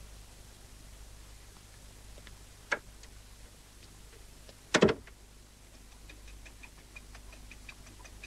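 A door clicks open and then shuts with a double knock about five seconds in. After that, a faint, fast, even ticking begins.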